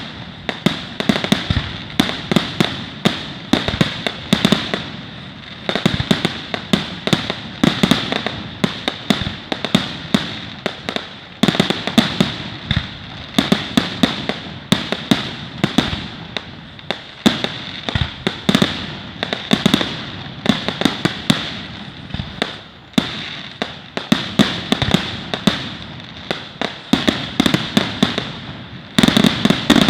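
Fireworks going off in rapid, continuous bangs and pops, several a second, with louder clusters every second or two.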